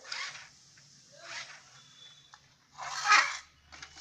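Three short rasping scrapes from the toy RC truck being handled, the loudest about three seconds in.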